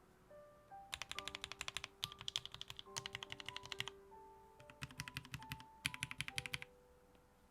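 Fast typing on a custom OLKB Planck 40% mechanical keyboard with lubed Gateron Ink Black linear switches: four quick runs of keystrokes with short pauses between them, over soft background music.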